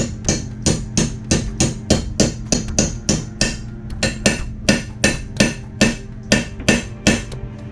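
Small hammer striking a pin punch in a steady run of light taps, about three a second, drifting out the pin that holds a Steyr M95 rifle's rear sight leaf. The taps stop shortly before the end.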